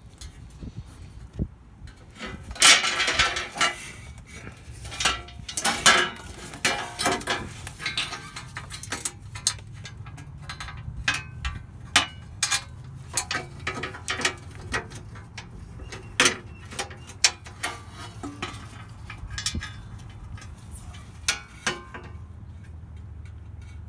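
Irregular metallic clicks and clanks of hand tools and parts being handled, heaviest in a few quick clusters early on, over a steady low hum.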